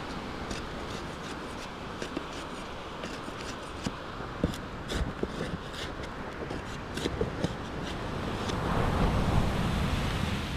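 A knife chopping and scraping at a thin green stick against a driftwood log: a series of irregular short knocks and clicks. Steady wind noise on the microphone runs underneath and swells near the end.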